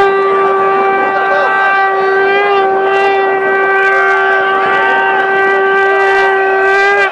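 A conch shell (shankh) blown in one long, steady, unwavering blast of about seven seconds, over the chatter of a large crowd.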